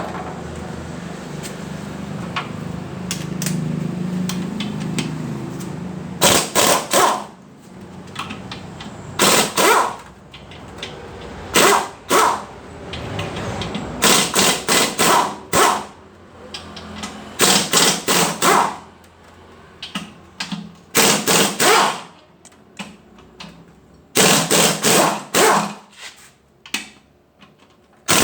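Impact wrench rattling in short bursts about every two to three seconds, starting about six seconds in, as bolts are undone on a transmission being taken apart. A steady low hum fills the first few seconds.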